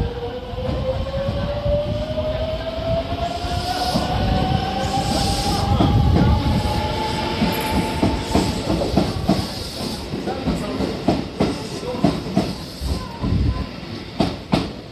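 JR West 281 series electric train pulling into a platform. A whine rises steadily in pitch over the first eight seconds. Then the wheels click over the rail joints, the clicks coming further apart as the train slows.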